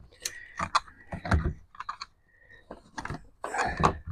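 Irregular plastic clicks and knocks from a portable generator's plastic side panel being worked loose and handled as it comes off.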